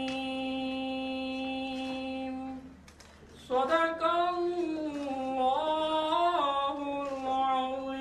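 A man chanting Quran verses in melodic recitation: a long held note, a short breath pause about three seconds in, then a gliding, ornamented phrase that rises and falls in steps before settling into another long held note.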